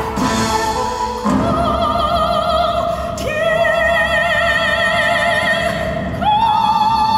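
A male singer's high voice holding long notes with vibrato over orchestral accompaniment, moving to a new note about a second in and again about three seconds in, then stepping up to a higher note about six seconds in.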